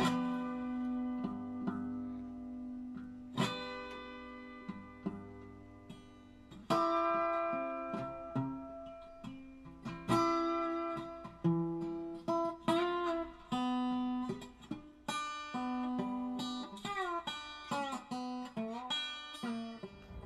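Acoustic guitar background music: single plucked notes ringing out one after another, with sliding, bending notes in the second half.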